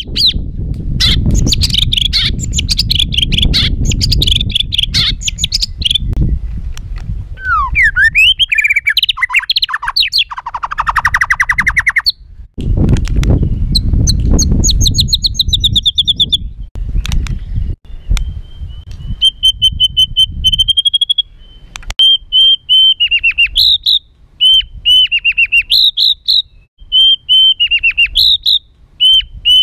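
White-rumped shama singing an agitated, harsh song of rapid trills, chatters and whistled glides. From about two-thirds of the way through it repeats a short phrase of quick notes over and over. A low rumble of background noise runs under the song until about two-thirds of the way through.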